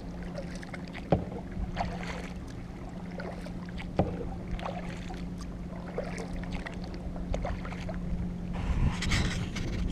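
Kayak paddling: the paddle blades dip and splash the water stroke after stroke, with two sharp knocks about one and four seconds in and a louder run of splashing near the end, over a steady low hum.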